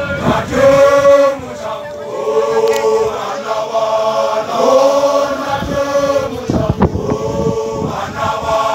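Group of Basotho male initiates (makolwane) chanting together in unison, long held notes sung in phrases of a second or two. A sharp knock about two thirds of the way through.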